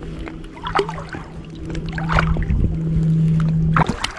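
Water splashing and trickling close by, over a steady low hum that cuts off shortly before the end.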